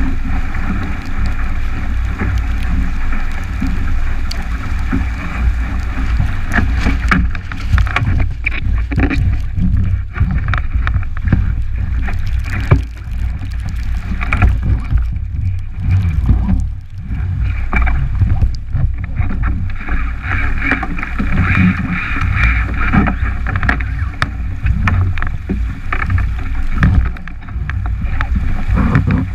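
Wind buffeting a GoPro's microphone on a 29er skiff sailing fast in heavy air, a heavy low rumble over the rush of water and spray along the hull. Frequent sharp slaps and knocks as the hull hits the chop.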